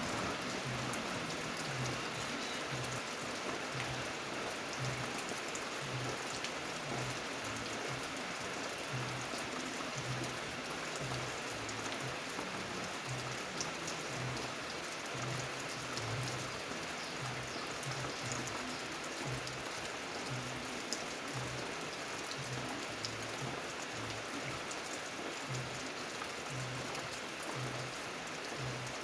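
Steady rain falling, an even hiss of drops, with a soft low pulse repeating about twice a second underneath.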